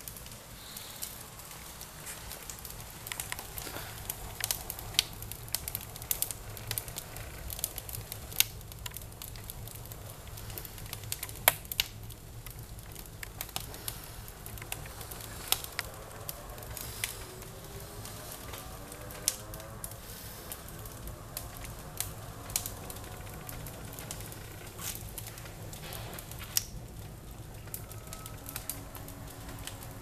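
Wood fire burning in an open-doored wood stove, crackling with frequent sharp, irregular pops over a low steady hum.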